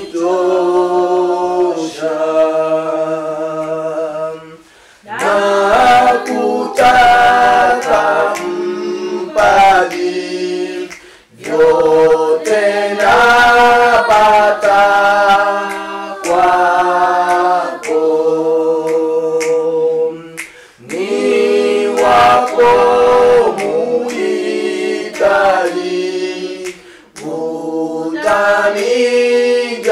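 A cappella vocal group singing a hymn in harmony, in phrases with short breaks between them.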